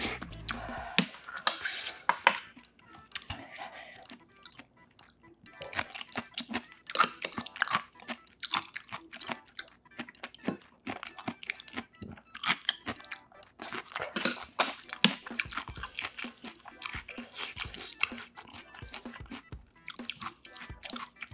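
Close-miked eating sounds: wet chewing and smacking of stew and rice, with a metal spoon and chopsticks clicking irregularly against ceramic bowls.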